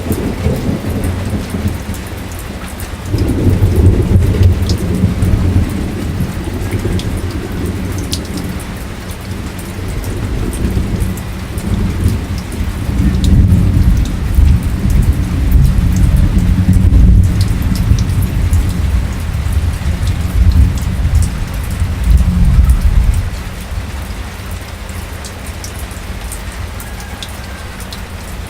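Drizzle falling steadily, with scattered drops ticking, under a long rolling rumble of thunder. The thunder comes in a few seconds in, swells and rolls on for about twenty seconds, then dies away near the end, leaving only the rain.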